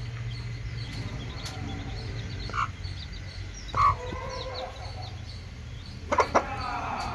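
Day-old Kilimooku (parrot-nose) Aseel chicks peeping in a constant chorus of short chirps over a low steady hum. A few louder single calls come about a third and halfway in, and a quick run of calls comes near the end.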